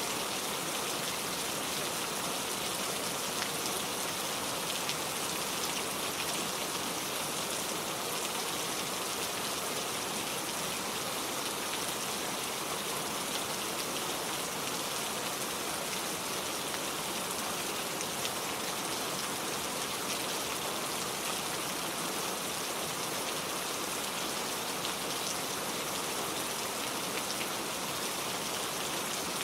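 Heavy, steady rain falling, a constant hiss of drops with fine individual patters and no letup.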